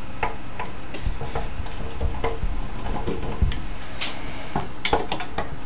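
A screwdriver working the screws of a metal cover on a vacuum-tube electronics module: scattered small metallic clicks and knocks, with a short scrape about four seconds in and a few sharp clicks near the end.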